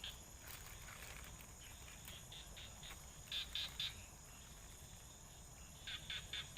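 Frogs calling at night in short calls, in quick runs of three or four notes. The loudest run comes about three and a half seconds in, another near the end.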